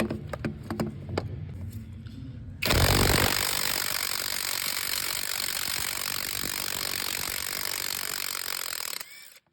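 A stubby 1/2-inch cordless impact wrench hammering under load on a starter bolt. It starts suddenly about three seconds in, after a few clicks of handling, runs steadily for about six seconds and cuts off shortly before the end.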